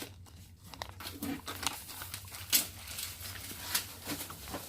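Handling noise of unpacking a new printer: irregular rustles and clicks of packaging being pulled and pushed around, with one sharper click about two and a half seconds in.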